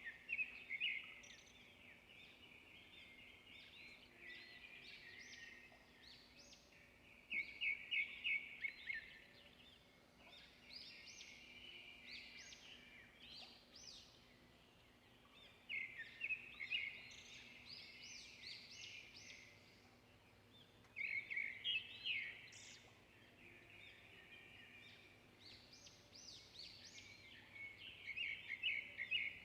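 Birds chirping in short trilled bursts that come every few seconds, over a faint steady background hum.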